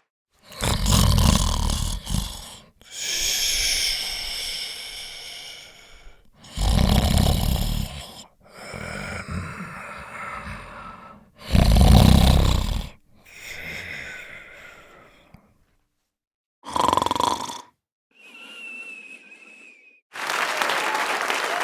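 Snoring sound effects: three loud, low, rumbling snores, each followed by a longer, higher-pitched out-breath. A short snort and a thin whistle-like tone follow. Applause starts near the end.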